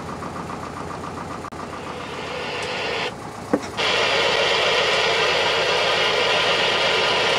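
A sailing yacht's engine running steadily as the boat motors through a marina. There is a brief squeak about three and a half seconds in, and from about four seconds in a louder, even rush of noise.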